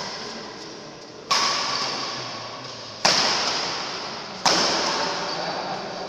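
Badminton rackets striking a shuttlecock in a rally: three sharp hits, about one and a half seconds apart, each ringing out in a long echo in the large hall.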